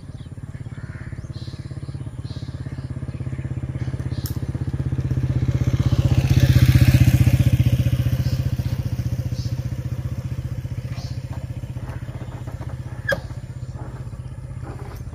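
Motorcycle engine passing by: a steady low engine note that builds to its loudest about halfway through, then fades as it moves away. A single sharp click comes near the end.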